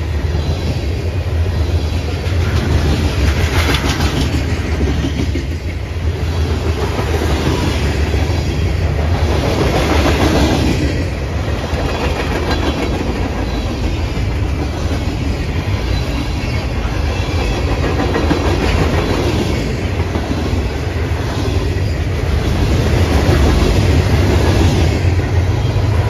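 Freight train of covered hoppers and gondolas rolling past close by: a steady rumble of steel wheels on rail with repeated clicks, swelling and easing as the cars go by.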